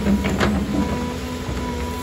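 Doosan excavator working: its diesel engine and hydraulics run steadily with a high whine, and a few sharp metallic clanks come in the first half second.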